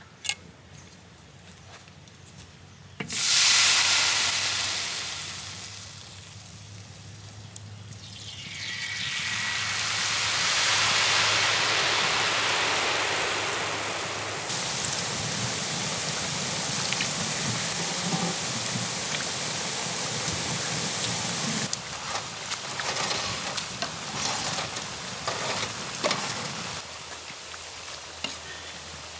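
Rose cookie (achu murukku) batter deep-frying in a large wok of hot oil: a loud sizzle starts suddenly about three seconds in as the batter meets the oil, eases, then swells again and holds steady before fading near the end with a few light clicks of the moulds and spoon.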